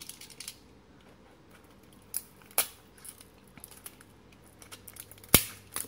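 Scattered light clicks and taps from handling a small cardboard box and a utility knife, with one sharp click near the end, as the knife is brought to the box's tight seal.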